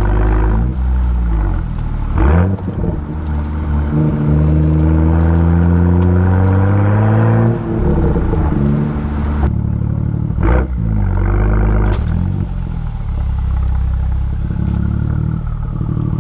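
BMW M2's turbocharged N55 inline-six heard at the exhaust, pulling under open throttle with the pitch climbing for about five seconds, then dropping off sharply at a shift or lift, then running at lower, steady revs. Two sharp cracks come through, one about two seconds in and one near ten seconds.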